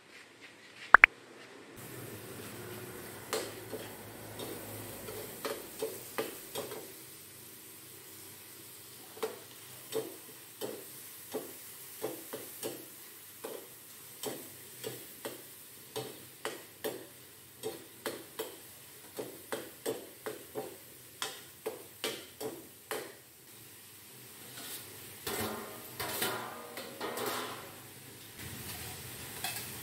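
Metal ladle knocking and scraping against a steel wok while squid is stir-fried over a gas flame, a strike about once or twice a second over a steady sizzle. A single sharp knock comes about a second in, and near the end the sizzling swells louder for a few seconds.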